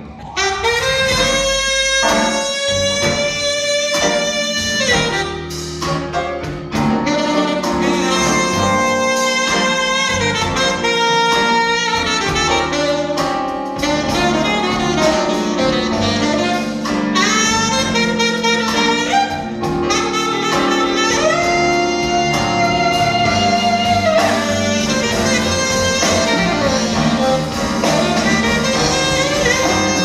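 Instrumental break of a slow ballad: a saxophone plays long held melody notes over grand piano and band accompaniment.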